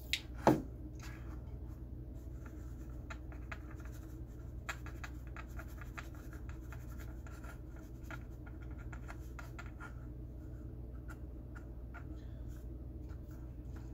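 Cotton swab scrubbing the solder side of a circuit board clean, a run of light scratchy strokes over a steady low hum, with one sharp knock about half a second in.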